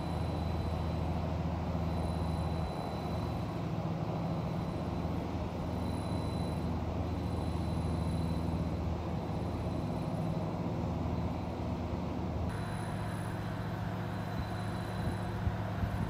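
Steady low rumble of a boat's diesel engine, with a hum of engine tones under it. The sound changes abruptly about three-quarters of the way through.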